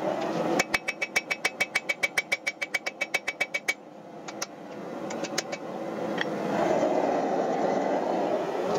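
Hand hammer striking a hot steel axe blade on an anvil: a fast, even run of about twenty ringing blows, then a handful of slower single blows. A steady rushing roar runs underneath, dipping after the fast run and building back.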